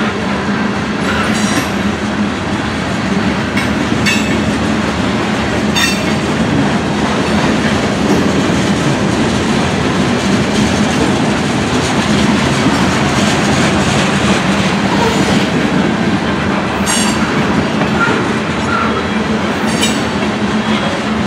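Long freight train of covered hopper cars rolling past: a steady rumble of steel wheels on the rails, broken by a few sharp, irregular clicks from the wheels.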